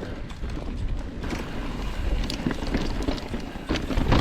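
Mountain bike riding a dirt singletrack: tyre noise on the trail and the bike rattling over bumps, with many short clicks and knocks throughout.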